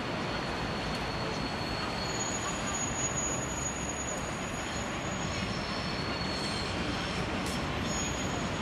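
Steady city traffic rush with a high-pitched squeal that sets in about two seconds in and shifts in pitch, returning near the end.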